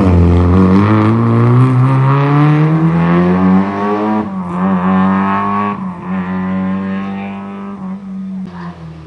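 Rally car engine accelerating hard out of a hairpin, its pitch climbing steadily, then dropping at a gear change about four seconds in. It pulls on in the next gear and fades as the car drives away.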